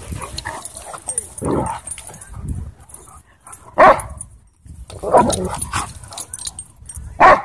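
Dogs barking at close range during a face-off: four short outbursts, the sharpest and loudest about four seconds in and again near the end.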